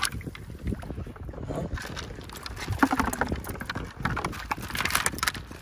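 Water splashing and sloshing as a hunter wades among floating decoys, mixed with the irregular clinking and rattling of metal decoy-weight chains being untangled.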